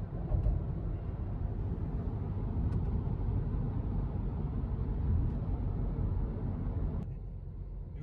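Road and engine noise inside a moving car's cabin: a steady low rumble of tyres and engine at road speed, which turns quieter and duller about seven seconds in.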